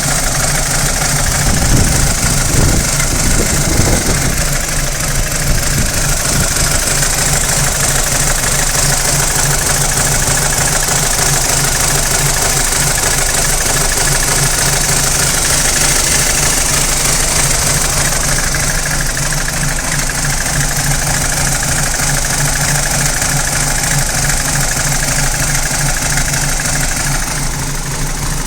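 BMW N46 2.0-litre four-cylinder engine idling warm with a fast, steady rattle and a misfire. The owner suspects the VANOS unit or its solenoid, since a new timing chain, guides and tensioner have not cured it. A few heavier low thumps come between about two and four seconds in.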